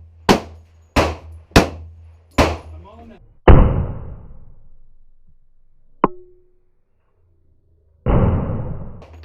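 Gunfire at an indoor shooting range: four sharp shots in quick succession, then two louder reports with a long ringing decay, one about three and a half seconds in and another about eight seconds in. A single short click comes near six seconds.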